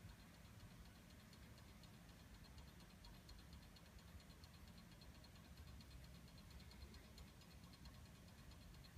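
Faint, steady ticking of a running 19th-century French mantel clock movement, its pendulum escapement beating evenly.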